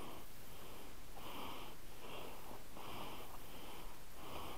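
Heavy, rhythmic breathing close to the microphone: about six quick puffed breaths, a little over one a second.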